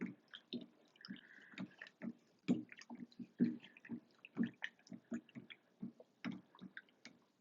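Irregular clicks and knocks as an old Moen Posi-Temp 1222 plastic cartridge is rocked back and forth with its removal tool inside the shower valve body, working it loose, with water dripping.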